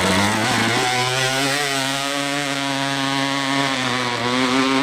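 Two-stroke dirt bike engine revving hard, with a change in pitch in the first second, then held at a steady high-pitched buzz as the bike climbs.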